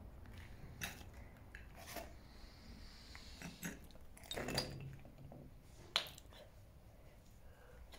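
Footsteps crunching over rubble and debris on the floor, sharp irregular crunches about once a second, with a louder one about four and a half seconds in.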